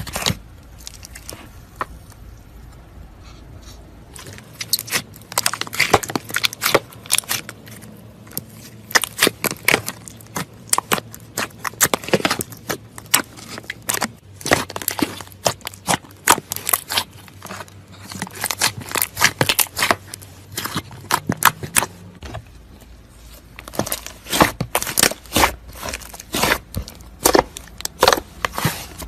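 Hands playing with slime, giving irregular clusters of sharp crackles and pops. It starts about four seconds in, pauses briefly near the end, then picks up again.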